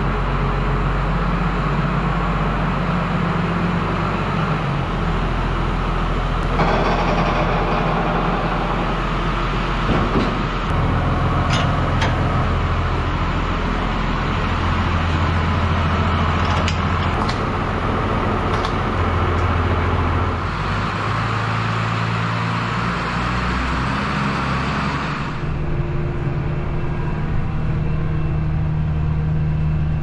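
Farm tractor engines running steadily, their tone changing several times. A few short clicks and knocks come near the middle. From about three-quarters of the way through, the engine is heard from inside the tractor cab.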